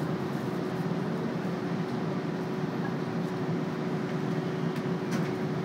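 Steady hum of a subway train standing at an underground station platform, with a constant drone tone over low rumbling noise and a few faint clicks near the end.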